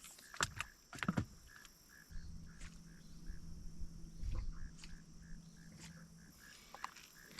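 A few knocks against the boat, then a boat's electric trolling motor hums steadily for about four seconds, switching on and off abruptly. A faint chirping pulse repeats about twice a second underneath.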